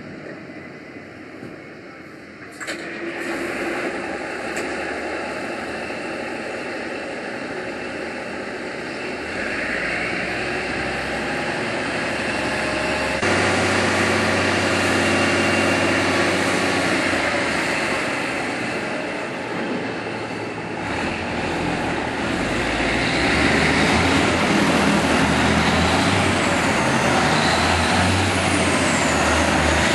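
Heavy-haul trucks' diesel engines running as they tow empty multi-axle trailers, getting louder in the second half as an International truck pulls away under power.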